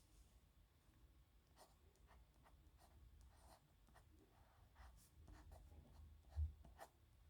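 A pen scratching across paper in short, quick handwriting strokes. There is a soft low thump a little after six seconds in.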